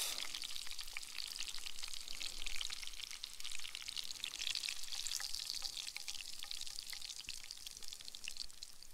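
Hot oil sizzling in a frying pan around a chip-breaded trout fillet, a dense fine crackle that slowly fades.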